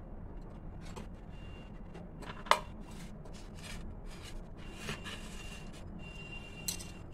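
Scattered light clicks and taps over a low steady hum, with one sharp click about two and a half seconds in and a smaller one near the end.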